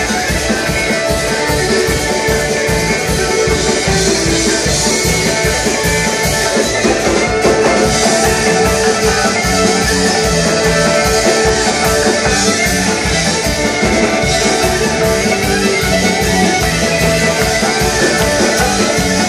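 A live folk band playing a fast number with a steady beat, with banjo, fiddle, accordion, acoustic and electric guitar.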